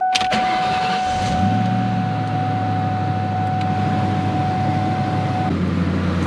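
2003 Ford Mustang SVT Cobra's supercharged 4.6-litre V8 started with the key: a click, about a second of cranking, then it catches and settles into a steady idle. A thin steady whine runs over it until about five and a half seconds in, and a car horn blast starts right at the end.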